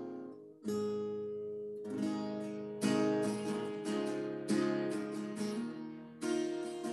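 Acoustic guitar strumming chords, with a fresh strum about every second, each ringing on and fading before the next.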